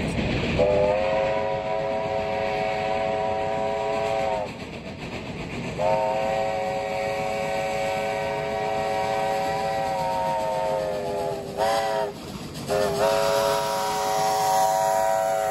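Narrow-gauge steam locomotive whistle blowing the long, long, short, long pattern of a grade-crossing signal. The blasts are steady, several notes sounding together.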